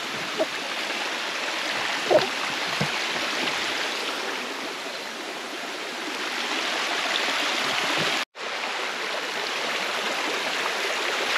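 Small stream running over rocks: a steady rush of water, which cuts out for an instant about eight seconds in.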